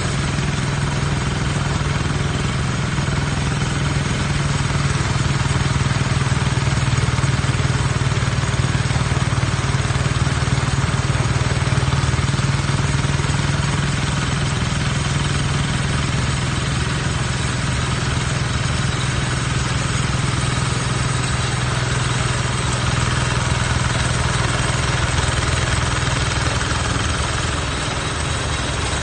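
Engine of a rice harvesting machine running steadily at an even speed, a constant low hum with a broad mechanical noise over it.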